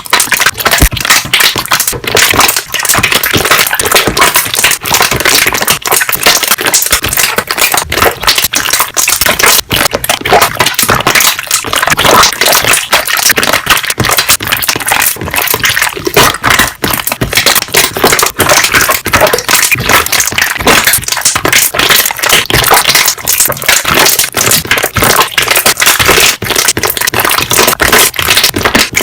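Slime being pressed and squeezed, its trapped air bubbles popping in rapid, dense, loud clicks and pops.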